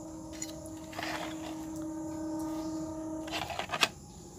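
Steady electrical hum from the powered CRT TV chassis under test, cutting off about three and a half seconds in. A few sharp clicks follow just after, the loudest near the end.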